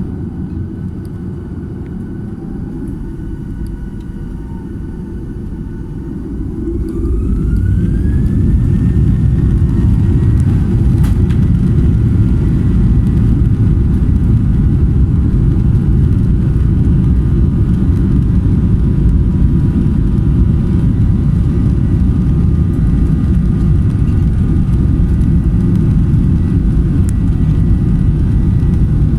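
Boeing 737-800 jet engines spooling up for takeoff: a whine rises in pitch over the first several seconds, then about seven seconds in the sound swells to a loud, steady roar with a heavy low rumble as the airliner rolls at takeoff thrust.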